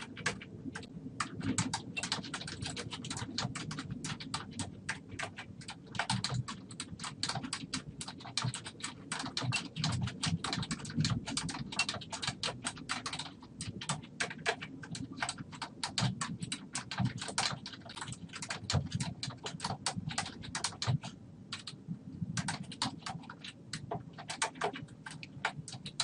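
Computer keyboard being typed on: rapid, uneven keystroke clicks in runs, with a couple of brief pauses.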